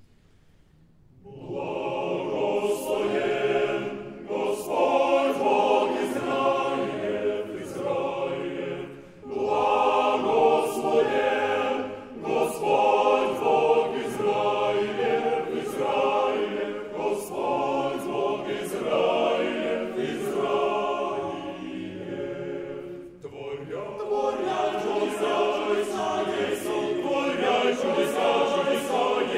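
Men's choir singing a cappella, sacred Russian Orthodox choral concerto arranged for men's voices. It enters about a second and a half in and goes on in full chords, with short breaks between phrases.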